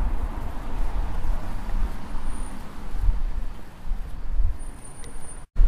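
Road traffic running along a town street, a steady wash of noise with gusty low rumble on the microphone. A faint high thin tone sounds briefly twice, and the sound cuts out for a moment near the end.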